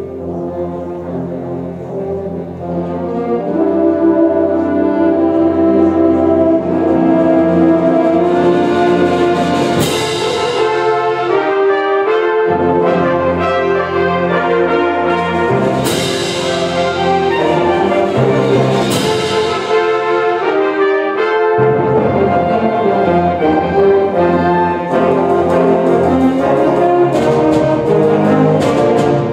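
Symphonic concert band playing, led by the brass in sustained chords that swell in volume about four seconds in. Three crashes ring out through the middle of the passage.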